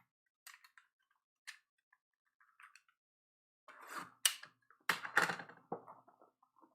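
Trading-card packaging being handled: a few light clicks and taps, then from about four seconds in a run of crinkling with several sharp snaps.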